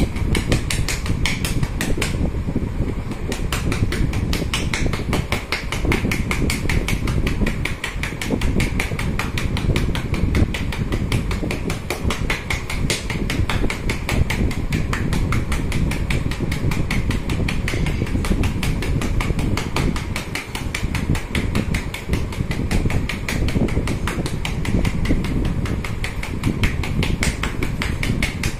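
Rapid, even patter of hand taps from chest percussion on a patient's chest, a chest physiotherapy technique for loosening lung secretions, over a steady low rumble.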